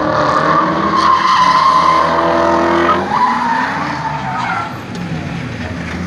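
Nissan 180SX drifting in circles, its engine held high in the revs while the rear tyres squeal and skid. About three seconds in the revs drop, and the engine and tyre noise fade off over the last couple of seconds.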